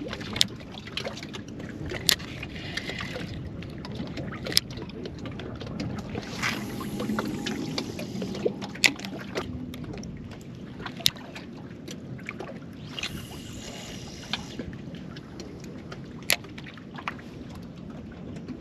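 Wind buffeting the microphone over water lapping against a small boat's hull, with a sharp click every couple of seconds and two brief hissing swells, about six and thirteen seconds in.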